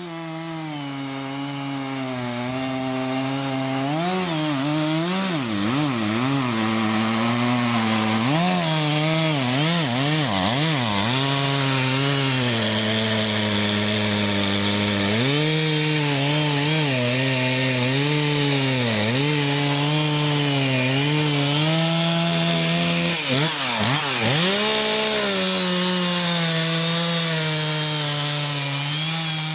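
Stihl two-stroke chainsaw cutting into the base of a large tree trunk, getting louder over the first few seconds. The engine pitch wavers up and down as the chain is worked into the wood, holds steadier under load, then dips briefly near the end.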